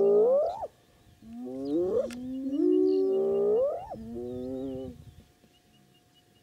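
Spotted hyenas whooping: loud calls that hold a low note and then glide sharply up in pitch, cutting off at the top. Three or four come in quick succession, with a short break about a second in, and stop about five seconds in. Small birds chirp faintly above them.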